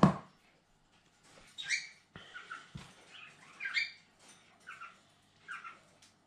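Pet cockatiels chirping in short, repeated high calls that drop in pitch, several times over. A sharp knock at the very start is the loudest sound, and there are a couple of faint taps a few seconds in.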